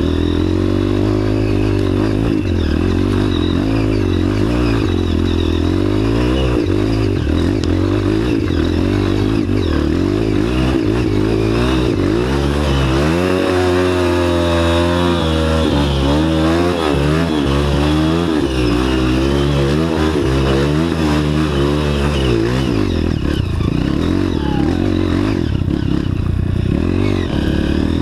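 Off-road dirt bike engine running hard, its revs rising and falling again and again, with deep swings in pitch about halfway through and again near the end.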